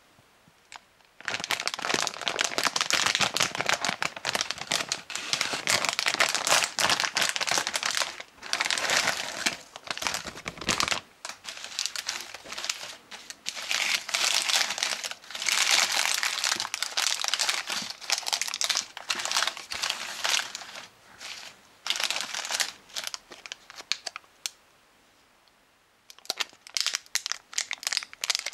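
Plastic candy wrappers crinkling as hands sort and pick up individually wrapped pieces of burger-shaped chewing gum. The crinkling comes in long bursts with short pauses, with a quiet gap of a couple of seconds near the end.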